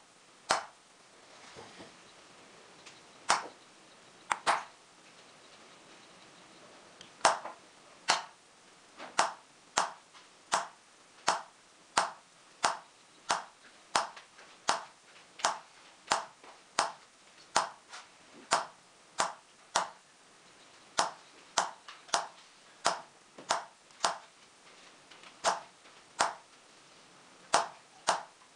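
Engraving chisel tapped with a small hammer into a silver plate bedded in pitch: sharp metallic taps, a few spaced out at first, then a steady rhythm of about three taps every two seconds.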